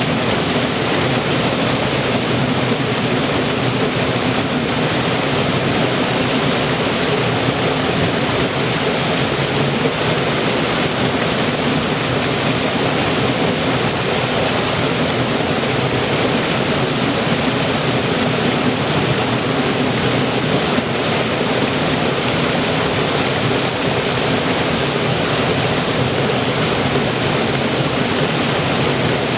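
River water flowing and rushing in a steady, unbroken wash.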